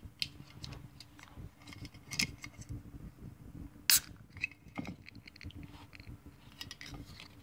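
Close handling noise: scattered light clicks and taps of fingers fumbling with a drink can's pull tab, with one sharp click about four seconds in.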